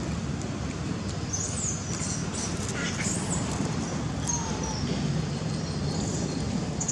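A few short, high-pitched animal chirps scattered over a steady low rumble of outdoor background noise.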